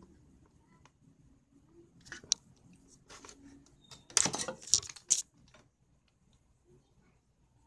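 Handling noises on a workbench: a sharp click about two seconds in, then a second-long burst of scraping and clicks about four seconds in.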